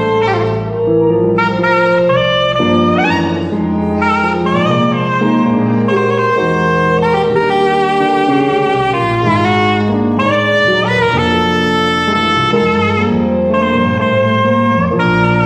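Soprano saxophone playing a worship melody, with slides up into some notes, over sustained keyboard chords.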